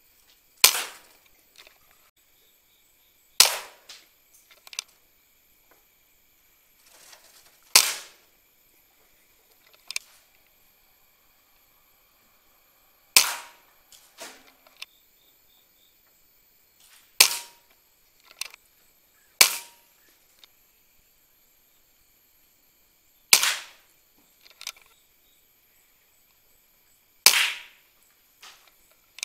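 PCP air rifle firing, eight sharp cracks a few seconds apart, several of them followed by a fainter click or two.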